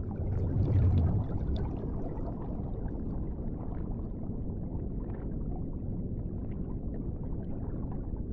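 Underwater bubbling sound effect: a steady low rushing wash with scattered small bubble pops, swelling louder about a second in.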